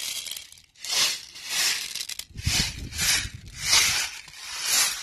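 Plastic airsoft BBs rattling as they pour from a bottle into a speed loader, coming in repeated bursts about every two-thirds of a second as the bottle is jiggled to keep them flowing, with a low handling thump about halfway through.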